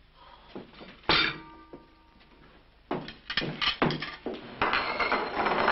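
Tableware clinking and clattering. One sharp clink about a second in rings on briefly, like china or metal struck. From about three seconds in comes a run of knocks and clatter that thickens towards the end.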